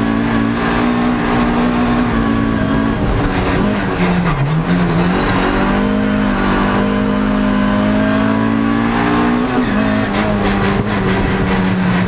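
Toyota MR2 AW11 rallycross car's engine heard from inside the cabin, running hard on track. Its pitch holds high, dips briefly about four seconds in and steps down again later.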